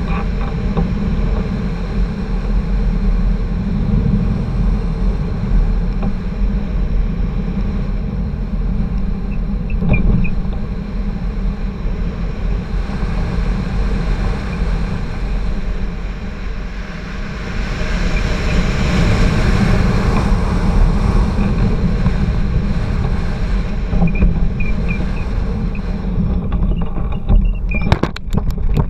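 Wind rushing over a hang glider's wing-mounted camera in flight, a steady low buffeting. Near the end there are several sharp knocks and rattles as the glider comes down to land.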